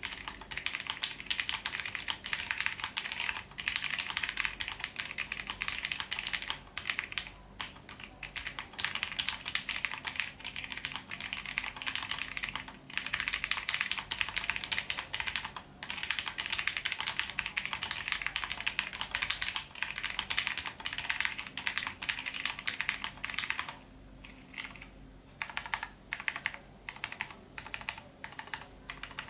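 Rapid continuous typing on a TGR Jane v2 CE custom mechanical keyboard with lubed and filmed vintage Cherry MX Brown switches, black PPS keycaps, an FR4 half plate and a top-mounted case. About six seconds before the end, the typing thins to scattered single keystrokes.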